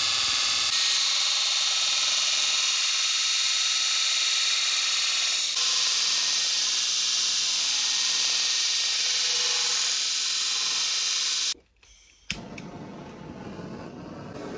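Belt grinder's abrasive belt grinding the profile of a knife blade from saw-blade steel: a steady, loud, harsh hiss. It cuts off suddenly near the end, followed by a single click and a much quieter background.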